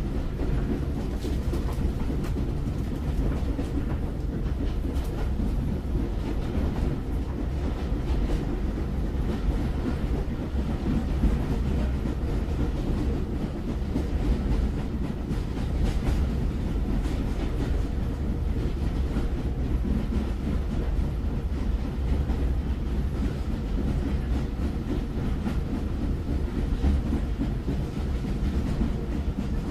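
Train rolling on rails: a steady low rumble with faint clicks of the wheels running on without let-up.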